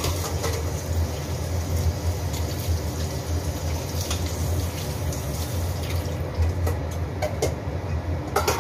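Water running from a kitchen tap, with the hiss easing about six seconds in, then a few light clinks. A steady low hum runs underneath.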